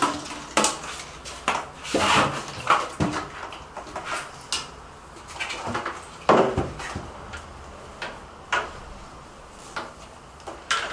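Irregular knocks and clatter of a canister filter's hoses and plastic fittings being handled and set into a plastic bucket, with a louder knock about six seconds in.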